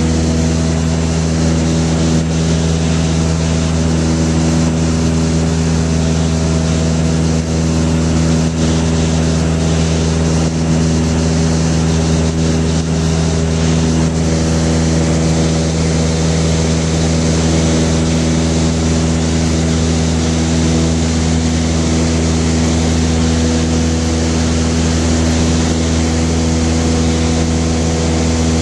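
Piston engine and propeller of a high-wing light aircraft running steadily in flight, heard inside the cabin as an even drone with a constant rush of air.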